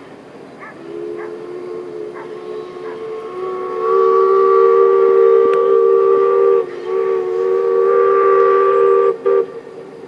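Steam whistle of LMS Black Five 4-6-0 locomotive 45407 'The Lancashire Fusilier' sounding a long, steady chord-like blast. It swells louder a few seconds in, dips briefly about two-thirds of the way through, and cuts off near the end with a short final toot.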